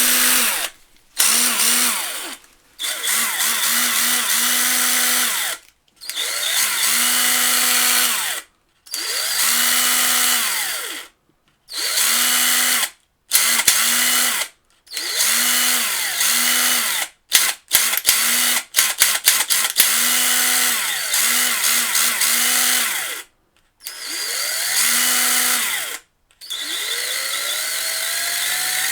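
Cordless drill motor run in repeated bursts of a few seconds, each spinning up to a steady whine and winding down when the trigger is released. About two-thirds of the way through comes a quick flurry of short trigger taps. Near the end the motor speeds up slowly on a gradual trigger squeeze.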